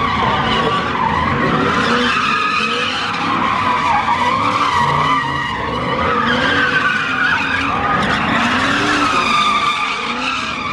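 Car tyres squealing continuously as cars spin donuts, the squeal wavering up and down in pitch, with the engines revving underneath.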